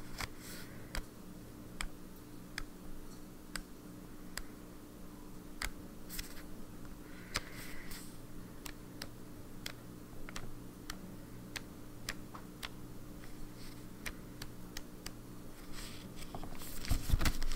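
Pages of a small spiral-bound notebook being flipped back one after another, a string of light, irregular paper ticks and flicks over a steady low hum. A louder rustle of handling near the end.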